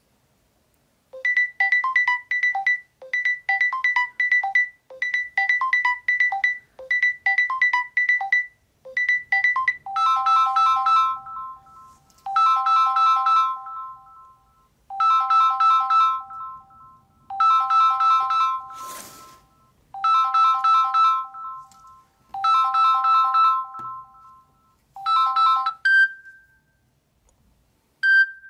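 Samsung Galaxy Note 10 Lite ringtones playing one after another. First a short phrase of quick high notes repeats about every two seconds; about ten seconds in a different ringtone takes over, a chord of chime-like tones repeating about every two and a half seconds, with a brief hiss partway through. Near the end come single short tones.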